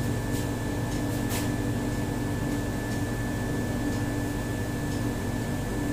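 Steady room hum with a constant high whine, and a few faint ticks.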